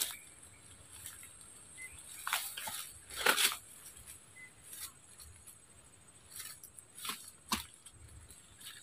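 Intermittent crunching and rustling of dry leaves, twigs and brush as a person steps and moves through undergrowth at the water's edge. There are about six short crunches, the loudest about three seconds in.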